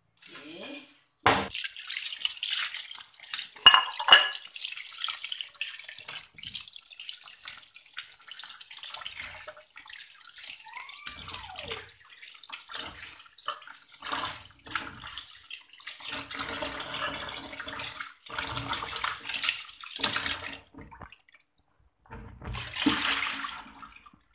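Water splashing and running as raw chicken feet are washed by hand in a plastic basin in a stainless steel sink, with scattered knocks of the feet and dishes. It stops briefly about three seconds before the end, then splashes again.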